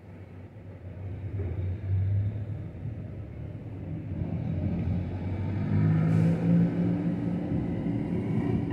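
Low rumble of an approaching vehicle, growing steadily louder, with an engine drone coming up about six seconds in.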